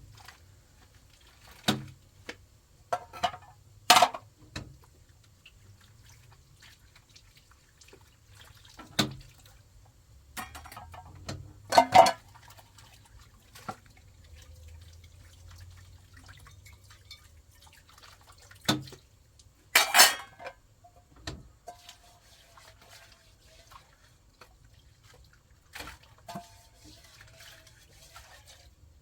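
Scattered clinks and knocks, about a dozen at uneven intervals, several with a brief ring, as of hard objects being handled and set down.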